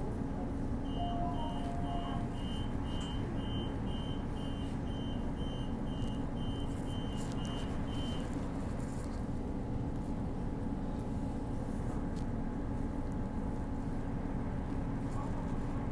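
Door-closing warning beeps aboard a Transperth B-series electric train: a high beep about twice a second, starting about a second in and stopping about eight seconds in. Under it runs the steady hum of the train's onboard electrical equipment.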